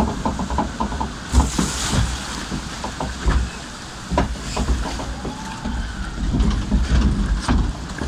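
Rushing water and wind buffeting the phone's microphone on a round river-rapids raft, with scattered knocks and bumps as the raft moves along the channel.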